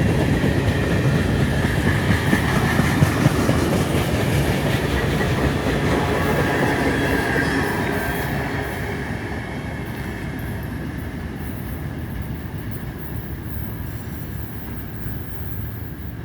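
Freight train cars rolling past on the rails, with wheel clatter and a faint squeal of wheels, fading away gradually over the second half.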